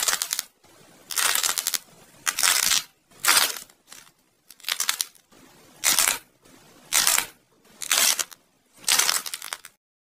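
Clay cheese wedge being squeezed and torn apart by hand: about nine short crunches, roughly one a second, as the crumbly clay inside breaks.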